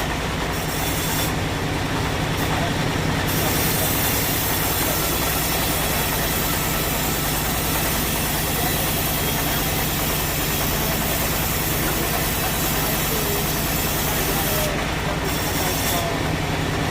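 Sawmill machinery running steadily: a continuous noise over a low, even hum, with no separate knocks or strikes.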